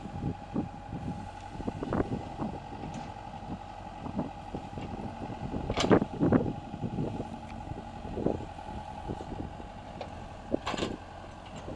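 Case backhoe loader's diesel engine running while the rear bucket digs into dirt, with a steady whine over the engine and a few loud clunks and scrapes, the loudest about halfway through and another near the end.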